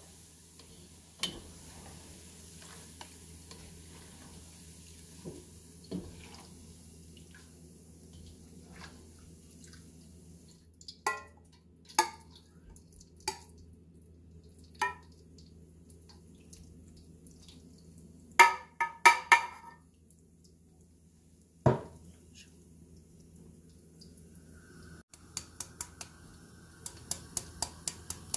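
Boondi frying in ghee in a steel wok with a faint sizzle, while a perforated steel ladle clinks against the wok to drop gram-flour batter. The clinks come singly a few seconds apart, bunch together briefly past the middle, and turn into a run of quick light ticks near the end.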